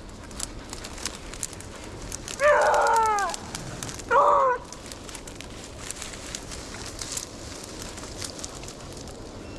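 A hunting hound bays twice: a drawn-out bawl of about a second, then a shorter one a second later. Light crackling of dry brush runs underneath.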